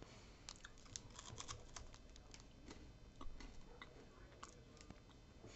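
Faint crunching of a Coffee Crisp wafer chocolate bar being chewed: a run of quick, crisp little clicks, thickest in the first couple of seconds and then sparser.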